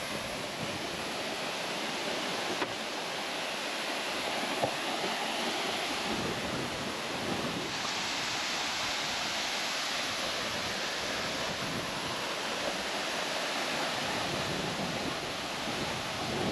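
A waterfall close by: an even, steady rush of falling water and spray, a little brighter from about eight seconds in.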